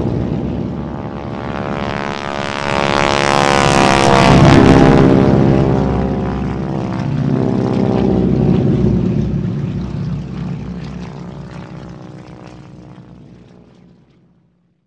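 Propeller airplane engine passing by: it swells to its loudest about four seconds in, its pitch sinking slowly, then it fades away to nothing near the end.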